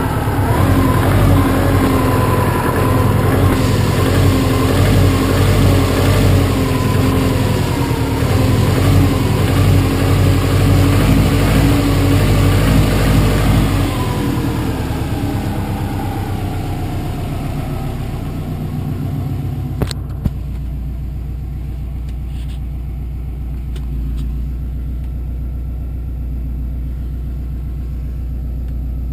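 Saab 9-2X Aero's turbocharged flat-four engine running at raised revs that waver, then falling back and settling to idle about two-thirds of the way in, with two sharp clicks shortly after. The engine has a knock that the owner puts down to piston slap.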